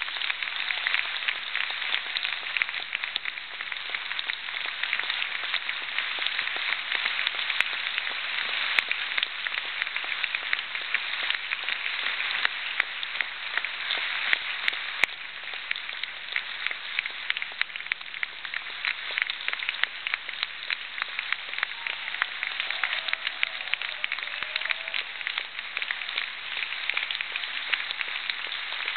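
An audience applauding in one long, unbroken round of applause.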